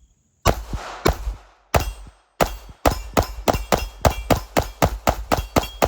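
A 2011-style Prodigy pistol with a ported Island Barrel firing a string of shots. A few shots come about half a second apart, then a rapid run of about four shots a second.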